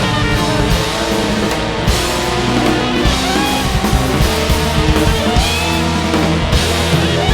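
Background rock music with distorted electric guitars and a steady driving beat.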